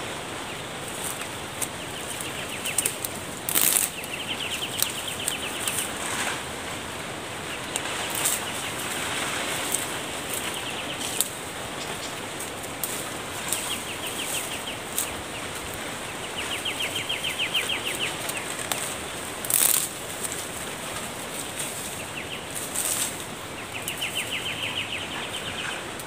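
Leaves and branches of a thorny tree rustling, with sharp cracks now and then, as thin twigs are broken off and pulled away by hand. Short rapid ticking trills recur several times in the background.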